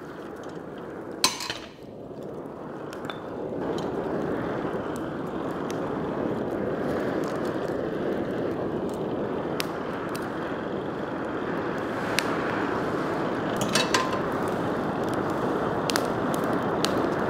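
Wood kindling burning in a blacksmith's forge, a steady rush of flame fed by an electric blower that swells up about three and a half seconds in, with sharp crackles and pops of the burning wood every few seconds.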